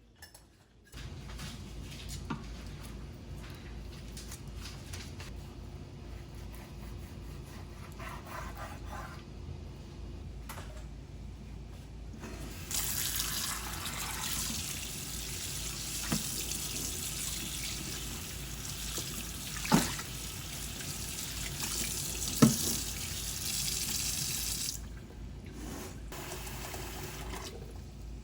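Tap water running into a sink for about twelve seconds, starting nearly halfway through, with a few sharp knocks of things set against the sink or counter. Quieter handling sounds come before and after the water.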